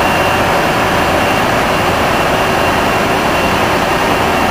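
Diesel power pack of a self-propelled modular transporter running steadily under load while the multi-axle trailer slowly carries a steel bridge deck.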